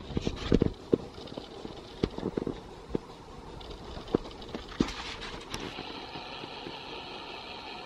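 Handling noise from a hand-held camera being carried: irregular knocks and clicks over the first five seconds, thinning out, then a steady background hiss with a faint high hum.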